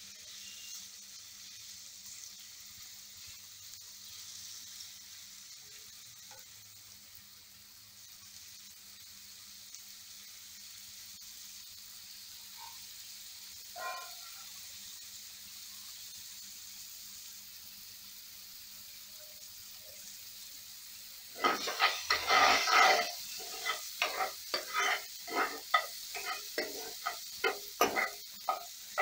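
Tomatoes, shallots and green chillies frying gently in oil in a kadai on a low flame, with a faint steady sizzle. About three-quarters of the way through, a steel spoon starts stirring and scraping the pan in quick, loud repeated strokes, two or three a second.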